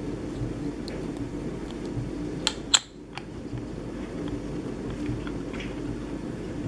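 Small plastic collectible figure being handled and its parts fitted together: light plastic ticks and rubbing, with two sharp clicks close together just under three seconds in, over a steady low hum.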